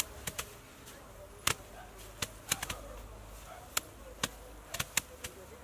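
Bundles of harvested grain stalks being beaten by hand against the ground to thresh out the grain: a dozen or so sharp, irregular thwacks from several people working at once, with faint voices in the background.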